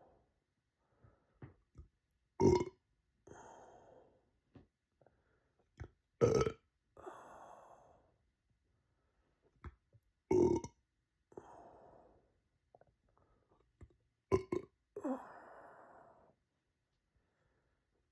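A person burping deliberately and loudly, four times at roughly four-second intervals, the last burp a quick double. Each burp trails off into a breathy rush of air, with faint small clicks between burps.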